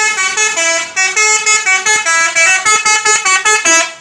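Telolet horn of a Nusa Bhakti bus, a multi-tone musical air horn, playing a quick tune of short stepped notes. There is a brief break about a second in, then faster staccato notes that cut off suddenly near the end.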